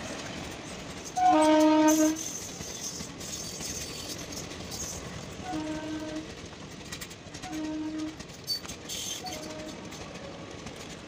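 A passenger train rolling past with a steady rumble and clatter of its wheels. A loud train horn blasts about a second in, for just under a second, and a few shorter, fainter horn notes follow later.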